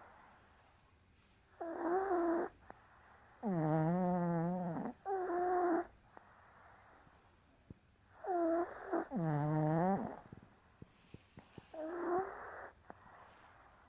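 Maltese dogs snoring in their sleep. About six pitched snores are heard, each about a second long, some coming in close pairs, with short quiet pauses between them.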